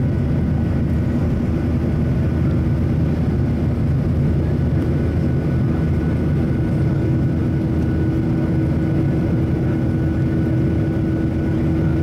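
Cabin noise of a Southwest Airlines Boeing 737 climbing out at takeoff power: its CFM56 turbofan engines make a steady low roar, with a constant hum running through it, heard from inside the fuselage.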